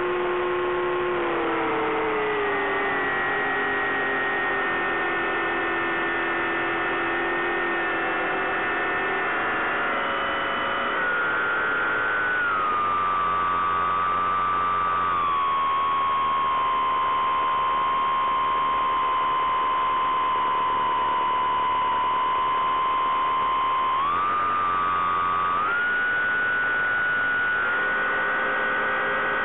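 Bix3 RC plane's electric motor and propeller humming in flight, heard from on board over a steady hiss. The pitch eases down in steps through the first half, holds low in the middle, then steps back up twice near the end as the motor speeds up.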